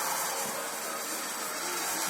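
Ferris wheel squeaking terribly as it turns: a steady grinding noise with faint thin squealing tones running through it.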